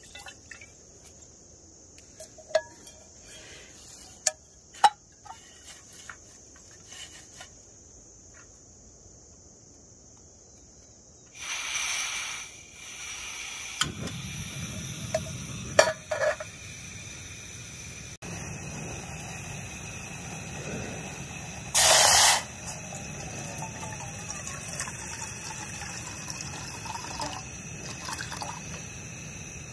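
Light clicks and knocks as an aluminium camping pot is handled. About halfway through, a portable gas-canister camping stove is turned on: a rush of gas, then the burner running steadily, with one short loud burst a few seconds later. Near the end, water is poured from a bottle into the pot.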